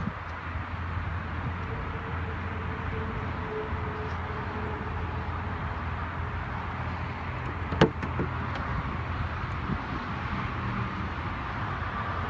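Lamborghini Huracán front luggage-compartment lid unlatching with a single sharp clunk about eight seconds in, a smaller knock following, over a steady low background hum.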